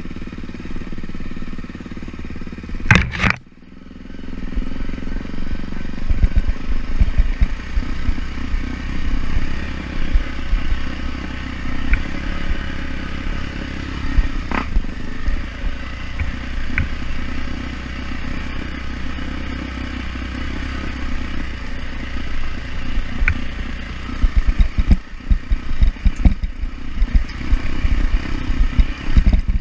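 Off-road motorcycle engine running while being ridden, with a loud sharp knock about three seconds in, scattered clicks, and heavy low rumbling and clatter over rough ground.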